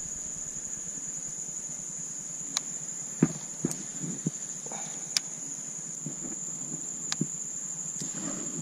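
Steady, high-pitched trilling of an insect chorus. A few short knocks and clicks come and go against it, the loudest about three seconds in, from the fishing rod, reel and kayak being handled.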